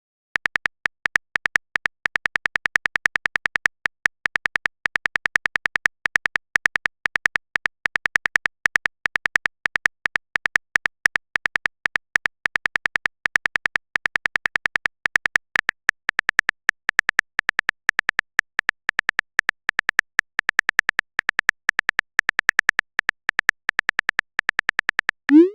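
Keyboard typing sound effect: a rapid, even stream of short clicks, several a second, ending with a short rising tone.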